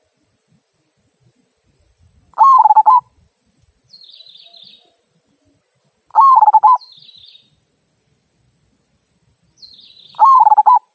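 Zebra dove (perkutut) cooing, a local bird with the 'kung' voice: three short warbling coo phrases about four seconds apart. Fainter high chirping from a small bird falls between them.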